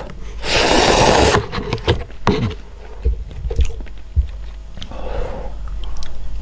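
Close-miked eating: a loud slurp of cup instant noodles about half a second in, then chewing, with chopsticks clicking and scraping against the bowls as a piece of fried pork is picked up and bitten.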